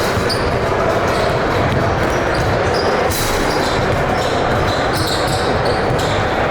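Basketball game in a large gym: a steady din of echoing crowd voices, with the ball bouncing on the court and brief high-pitched squeaks now and then.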